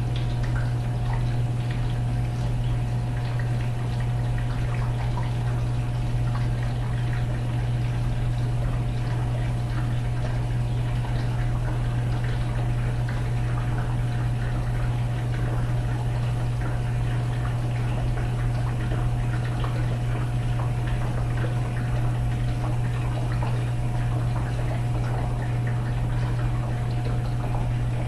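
Water running into a dishwasher tub through the energized fill valve, a steady rushing with a constant low hum under it.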